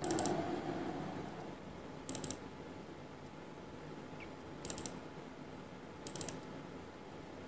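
Computer mouse double-clicks, four faint clusters roughly every two seconds, opening folder after folder in a file dialog.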